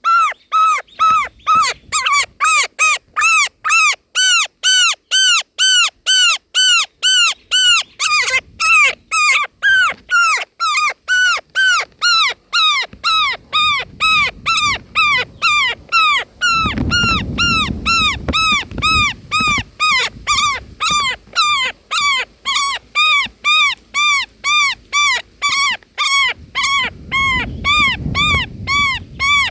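Indian roller nestlings begging: a steady, unbroken train of short calls, each rising and falling in pitch, about two to three a second. A low rumble comes in twice in the second half.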